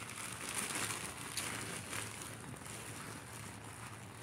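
Soft rustling and handling of clothing, a few faint brushes over a steady low hiss.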